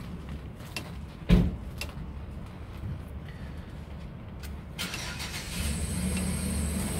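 A single loud metallic clunk about a second and a half in, as the worn drive shaft universal joint is rocked by hand and its play knocks, with a few faint clicks after it. A vehicle engine runs steadily underneath and grows louder over the last two seconds.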